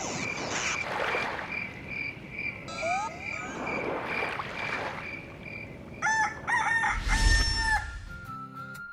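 A high, evenly repeated chirp sounds about two or three times a second, then a rooster crows about six seconds in. Background music comes back in near the end.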